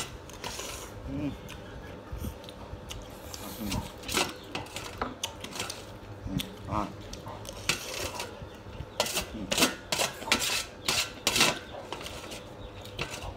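Metal spoon and chopsticks scraping and clinking on a metal serving tray while the last scattered noodles are gathered up, as a run of sharp clicks that come thickest near the end. A few short low grunt-like sounds come in between.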